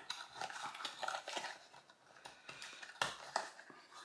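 Packaging being handled and opened by hand: scattered light rustles, crinkles and small clicks, with a sharper click about three seconds in.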